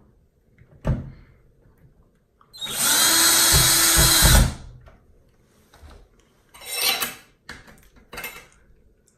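Power drill running in one steady burst of about two seconds, driving a screw to fasten a grab bar to the wall. A knock comes about a second in, and a shorter burst of noise follows near seven seconds.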